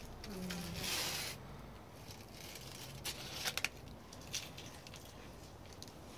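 Broad vine leaves rustling and brushing against the phone as it is pushed through the plants, with a louder rustle about a second in and a few sharp handling clicks around the middle.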